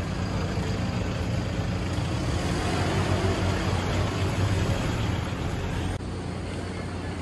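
Steady low engine hum of an idling motor vehicle amid street traffic noise, dropping slightly in level about six seconds in.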